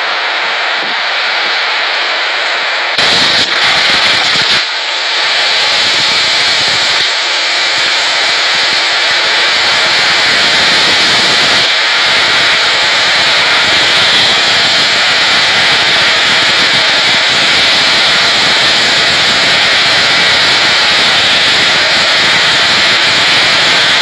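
Storm noise: a sudden loud thunderclap about three seconds in, then a steady, heavy roar of wind and driving rain over the water.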